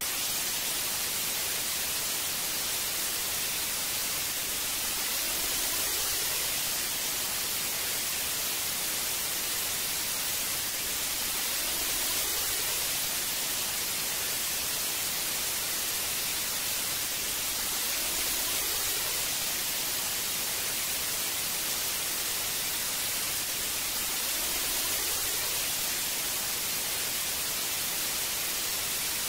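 Analog television static: a steady, even hiss of white noise from a CRT set tuned to no signal.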